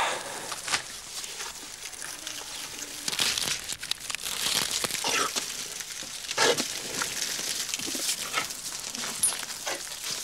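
Irregular rustling and crinkling as elephant food parcels of boiled wheat and salt are wrapped and twisted by hand.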